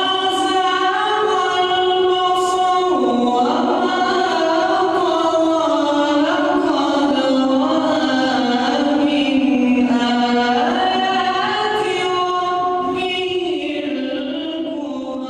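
Male reciter chanting Quranic verses in melodic tajweed style, holding long notes and ornamenting them with pitch slides.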